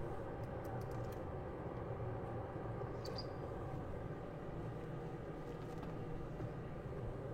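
Steady low background hum with a few faint light clicks in the first second and a brief high chirp about three seconds in.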